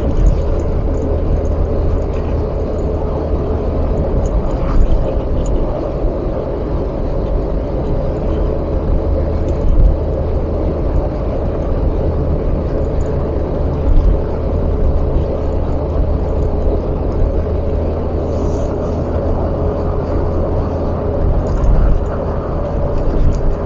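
Car cabin noise while driving: steady engine and road rumble, with a few brief thumps along the way.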